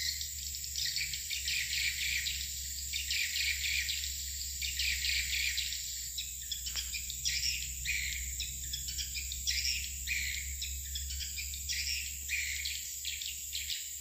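Swiftlets twittering in a dense, continuous run of chirps over a steady high-pitched drone.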